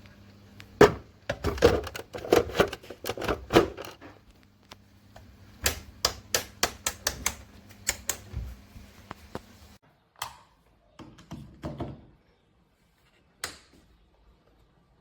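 Rapid runs of sharp clicks and knocks, like hard plastic being handled, over a low steady hum that cuts off suddenly about ten seconds in; a few more knocks follow.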